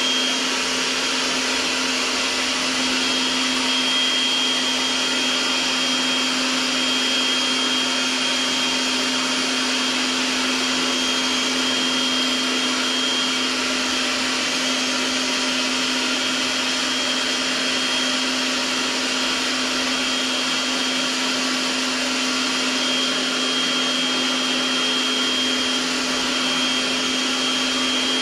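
Kärcher electric pressure washer running steadily while its lance sprays soap solution onto a motorcycle: a constant motor hum with a thin high whine over the hiss of the spray.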